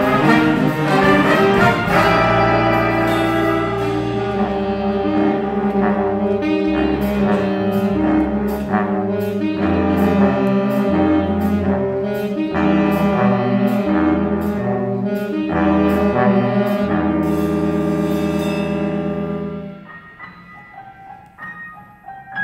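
Student jazz big band of saxophones, trumpets and trombones playing, with a cymbal keeping a steady beat of about two ticks a second; the band swells into a long held chord that cuts off about twenty seconds in. A few soft piano notes follow near the end.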